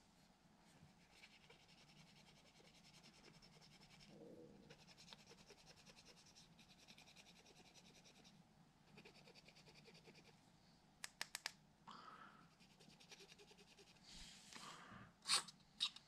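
Faint scratching strokes in runs of one to two seconds, then a quick run of four small clicks and, near the end, two louder sharp clicks.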